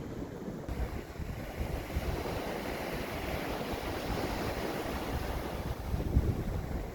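Sea surf washing on a shore, with wind gusting on the microphone.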